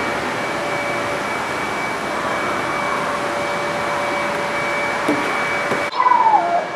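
Steady whooshing air noise with a faint high whine, like a blower or ventilation, that cuts off abruptly near the end; a short high child's voice follows it.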